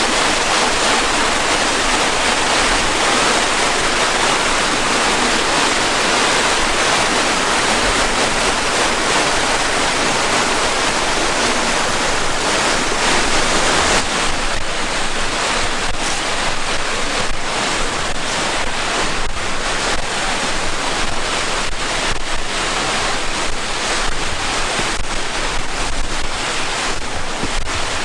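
Steady rush of waterfall and creek water. About halfway through the rush drops and uneven gusts of wind buffet the microphone.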